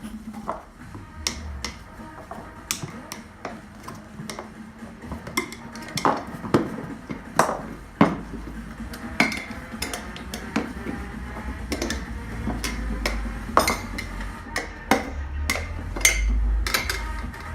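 Metal hand tools clinking and knocking irregularly while working on a scooter's wheel for a tyre change, over faint background music.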